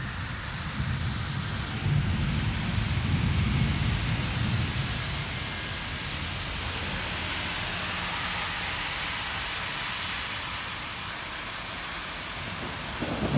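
Thunder rumbling over steady rain: a low rolling rumble through the first few seconds that dies away, leaving the hiss of rain. A louder low rumble starts right at the end.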